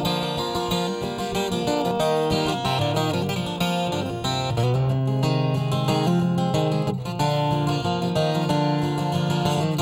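Twelve-string acoustic guitar played solo, strumming a steady instrumental break in an upbeat country-folk tune.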